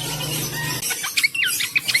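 A cingcoang (shortwing) songbird starts singing about a second in: a fast run of short, high whistled notes, many sliding down in pitch. A low steady hum runs underneath before the song starts.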